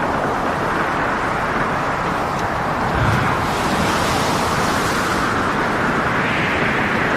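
Storm at sea: a steady rush of wind and heavy waves, with a deeper surge about three seconds in.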